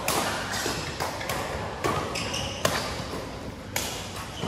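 Badminton rackets striking a shuttlecock in a doubles rally: a run of sharp hits, roughly one a second.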